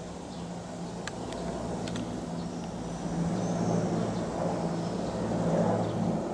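Low-flying military helicopter, a steady low drone of rotor and engine that grows louder about three seconds in.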